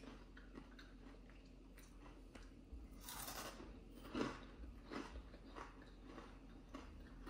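A person biting into and chewing a fried corn-flour (makki atta) pakora: faint, soft crunching, with a few louder crunches about three and four seconds in.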